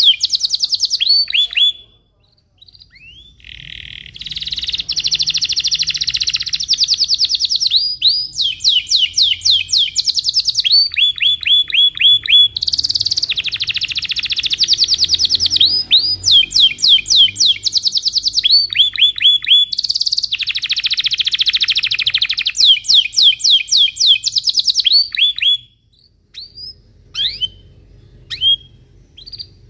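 Domestic canary singing: a long song of fast trilled rolls and rapidly repeated chirps, with a brief pause a couple of seconds in. Near the end the song breaks off into a few scattered single chirps.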